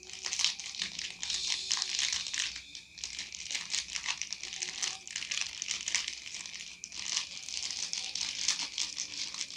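Thin clear plastic bag crinkling as a wristwatch is handled and worked out of it by hand, a dense irregular crackling that eases briefly about three and seven seconds in.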